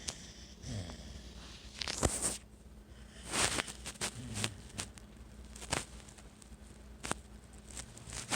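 A sleeping dog's noisy breathing: irregular short snorts and snuffles, with a few sharp clicks between them.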